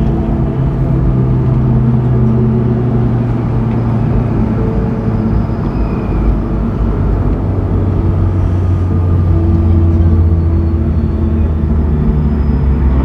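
Honda S2000's 2.2-litre F22C1 four-cylinder engine running steadily at low revs. Its note steps a little lower about halfway through.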